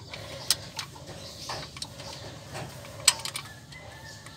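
Sharp metal clicks and taps as a fuel line fitting is worked into place on a diesel injection pump by hand. There are several separate clicks, the loudest about three seconds in.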